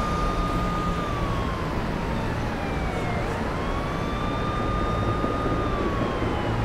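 An emergency vehicle's siren wailing: a slow rise, a hold at the top and a slow fall, repeating about every five seconds, over steady street noise.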